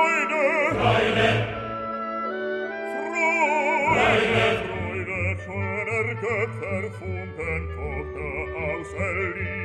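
Operatic classical music: a singer's voice with strong vibrato over sustained accompanying notes, swelling loudest about a second in and again near the middle.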